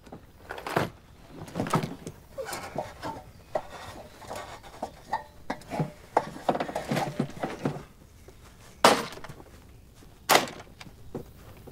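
A run of knocks, clatters and scuffs from a plastic toolbox being handled and carried down an aluminium ladder, with footsteps, ending in two sharp, loud knocks about a second and a half apart.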